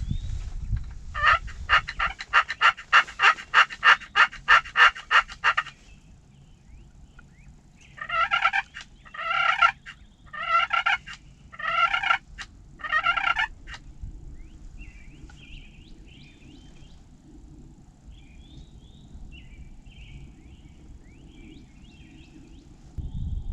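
Turkey calling: a long, even run of about sixteen loud yelps, three or four a second, then five gobbles about a second apart. Faint songbird chirps follow near the end.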